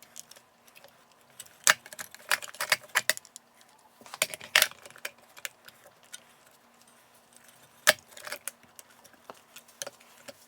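Irregular light clicks and clattering of hard objects being handled, in scattered clusters, with no vacuum motor running.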